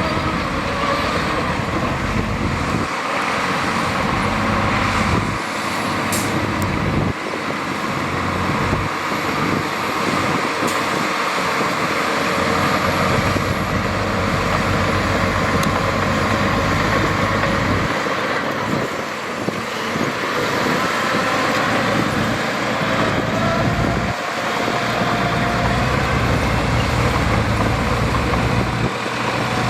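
Diesel engines of heavy earthmoving machinery, dump trucks and a bulldozer, running steadily under load, with a faint whine above the engine noise.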